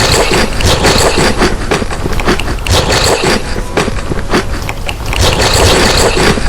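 Close-miked crunching and chewing of food, a dense run of loud, irregular crackles and clicks.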